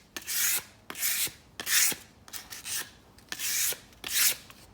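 Sandpaper rubbed by hand back and forth over wood in about six short, even strokes, smoothing the surface.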